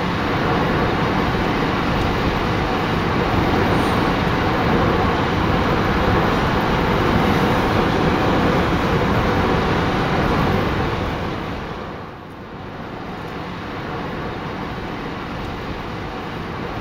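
Steady road and tyre noise heard from inside a car moving along a rain-soaked freeway. It drops in level about twelve seconds in and carries on a little quieter.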